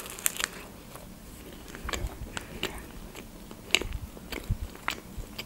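Biting into a slice of pepperoni pizza, then chewing it, with scattered small wet mouth clicks and soft low thumps.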